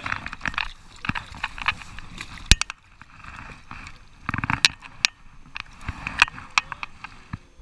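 Shallow river water splashing and sloshing in a few short bouts as a large sturgeon is held and moved by hand at the water's edge, mixed with sharp clicks and knocks from handling.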